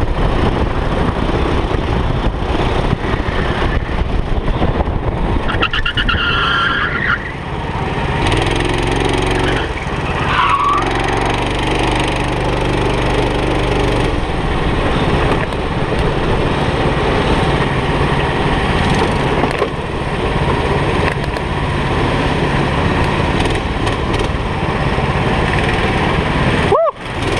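Go-kart engine running hard through a lap, heard from on board the kart, its note holding steadier from about 8 to 14 seconds in. It eases off near the end as the kart rolls into the pit lane.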